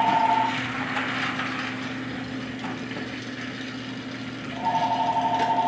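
Battery-powered Trackmaster toy train running along plastic track, its small motor giving a steady hum. A pulsing two-note electronic tone sounds briefly at the start and again near the end.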